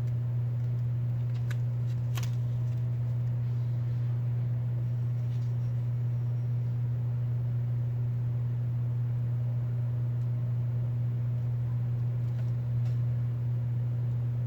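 A steady low hum, with a couple of faint small clicks about two seconds in.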